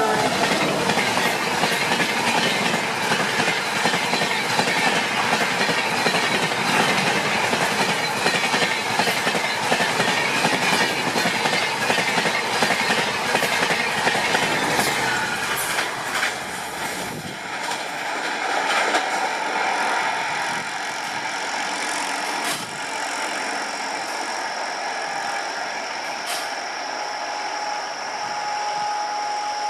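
Rajdhani Express passenger coaches running past on the rails, a dense rush with a quick clatter of wheels over rail joints. About two-thirds of the way through it drops to a quieter rolling rumble, with a thin high squeal of wheels toward the end.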